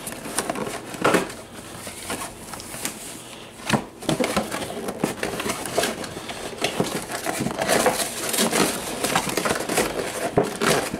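Cardboard toy box with a plastic window being handled and torn open: irregular rustling, scraping and crackling of card and plastic, with a couple of sharp knocks in the first few seconds.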